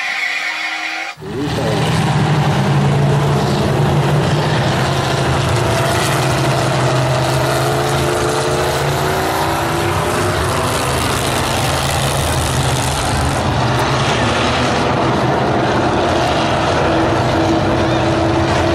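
A pack of stock race cars running laps around an oval track, a steady engine noise with several engines' pitches rising and falling as the cars go by. It opens with a brief tone lasting about a second before the engine noise cuts in.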